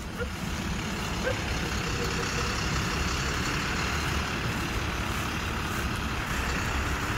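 Wrecker tow truck's engine running steadily, a low rumble with a hiss above it, getting a little louder about a second in.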